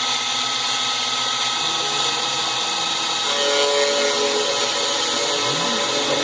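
CNC milling machine running while cutting perforations, a steady machine noise with several held tones. A new tone comes in about three seconds in, and near the end short rising and falling glides in pitch come from the axis motors moving.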